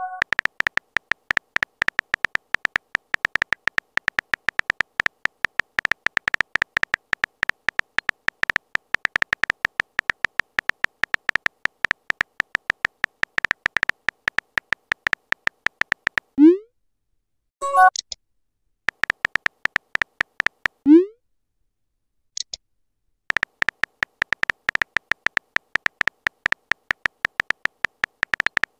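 Texting app's keyboard typing sound effect: a fast, unbroken run of short clicking ticks at one pitch. It pauses twice, about 16 and 21 seconds in, for a quick rising pop of a message alert, and once near 18 seconds for a short chime.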